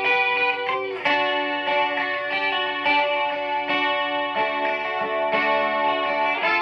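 Electric guitar playing held chords through a Donner Verb Square Evolution+ reverb pedal on its mod setting, which gives the reverb a gentle rolling chorusing effect. The chord changes about a second in and a few more times after that.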